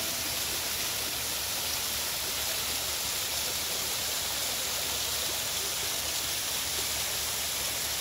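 Steady rush of water from a long, low wall of small waterfalls streaming down a cliff face.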